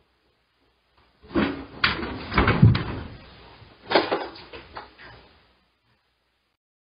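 A person falling and a chair toppling over onto a tiled floor: a run of thuds and clatters starting about a second in, the heaviest thump around two and a half seconds, then another clatter near four seconds that dies away.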